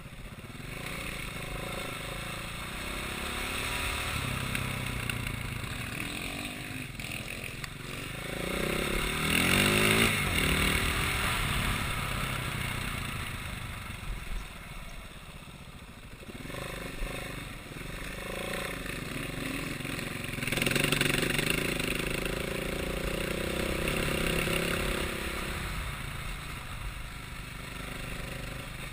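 A vehicle engine running under way, revving up and easing off several times, loudest about ten and twenty-one seconds in.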